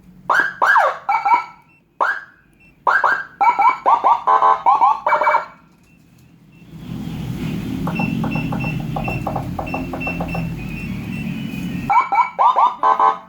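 Whelen HHS handheld dual-tone electronic siren module firing a run of short, quick rising chirps. About seven seconds in it switches to a low, rasping horn blast lasting several seconds, then goes back to rapid chirps near the end.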